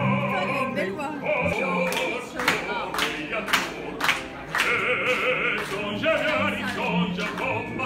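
Operatic singing with strong vibrato on long held notes. A few sharp clicks come between about two and four seconds in.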